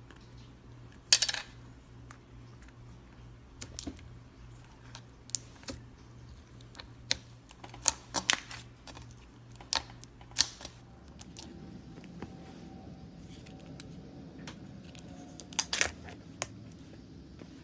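Cloud slime being handled, giving scattered crisp crackles and pops, a few much louder than the rest, over a low steady hum that drops away about two-thirds of the way through.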